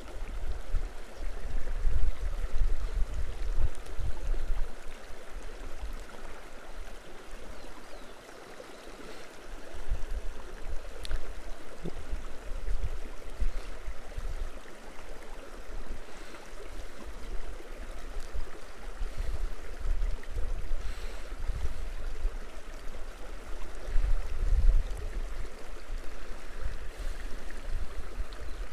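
Mountain river flowing: a steady rushing of water, with an uneven low rumble underneath that rises and falls.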